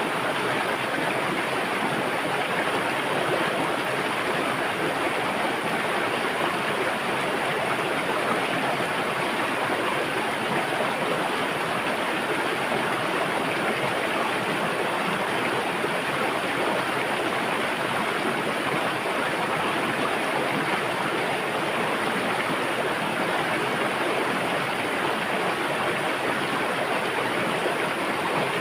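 River water flowing and rushing over rocks, a steady even rush with no breaks.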